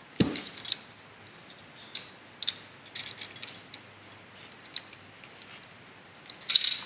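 Light metallic clicks and ticks, scattered and irregular, as the recoil spring and its cap are worked back into a Tokarev TT-C pistol's slide by hand during reassembly. A duller knock comes just after the start.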